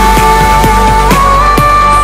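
Background music with a steady beat and a held high note that steps up in pitch about halfway through.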